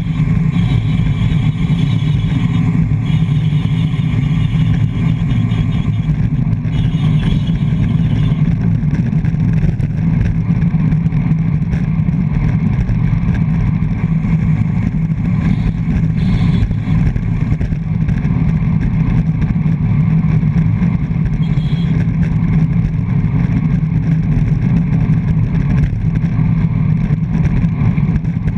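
Steady wind rush and low buffeting on a handlebar-mounted GoPro Hero 3+ moving at racing speed in a pack of road bikes, with tyre and road rumble underneath. Spells of high ticking during the first eight seconds, typical of bicycle freewheels as riders coast.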